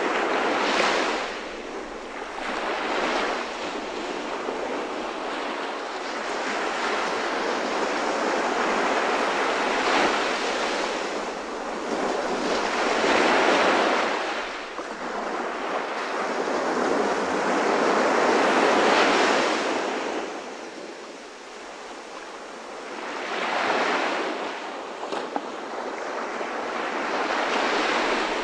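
Ocean surf: waves washing in and drawing back, the rush swelling and fading every few seconds.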